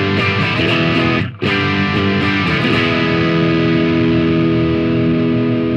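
Fender Telecaster electric guitar played with gain through a Marshall 6100 amp: a simple riff of short chord strikes, then a chord left ringing from about halfway. The tone is the Telecaster's darker, less bright sound compared with the Esquire.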